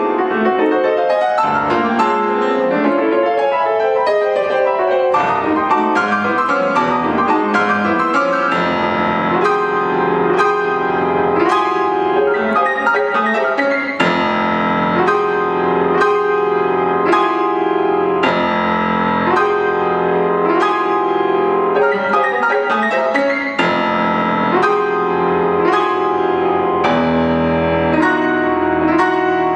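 Grand piano played loudly, solo: dense, hard-struck chords with sharp accents coming thick and fast over a sustained bass.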